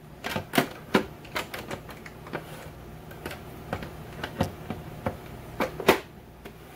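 Irregular plastic clicks and knocks as the back cover of a SodaStream Fizzi is fitted and pressed into place over the CO2 cylinder. The sharpest knocks come about half a second in, at one second, and just before six seconds.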